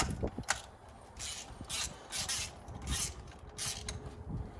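Hand tools and engine parts rubbing and scraping while spark plugs are being worked on: about six short rasping strokes at uneven intervals.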